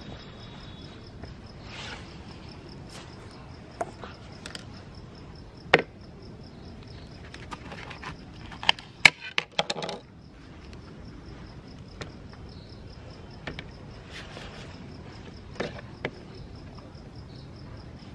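Scattered light knocks, clicks and scrapes of oranges being handled, torn open by hand and cut with a knife, with a quick cluster of sharp clicks about halfway through. A faint, rapidly pulsing high tone runs underneath.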